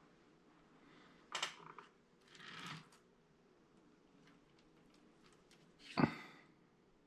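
Faint workbench handling sounds of a small sculpting knife and tools on wood and modelling clay: a short click about a second in, a brief scrape a little later, and a sharper knock about six seconds in.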